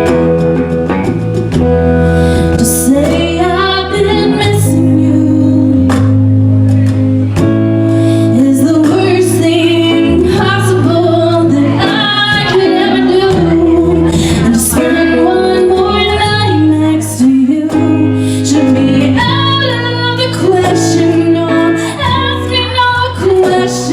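A woman singing a slow country song live over strummed acoustic guitar chords. The guitar plays alone at first, and the voice comes in a couple of seconds in.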